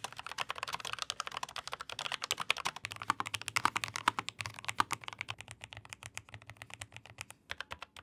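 Fast touch-typing on low-profile mechanical keyboards, a dense, rapid run of key clicks. The typing moves from a Logitech MX Keys Mechanical to a Lofree Flow with Kailh Full POM switches and back again.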